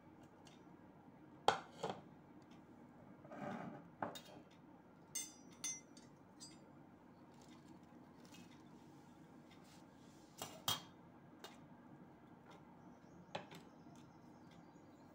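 Utensils clinking and tapping against a stainless steel plate as ingredients are added to a heap of puffed rice: a few sharp clinks spread out, with a short rustle about three and a half seconds in.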